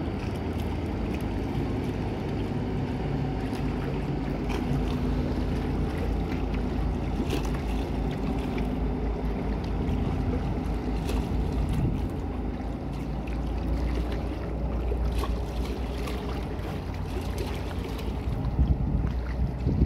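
Engines of a high-speed passenger catamaran giving a steady drone as it pulls away across the water, with wind on the microphone.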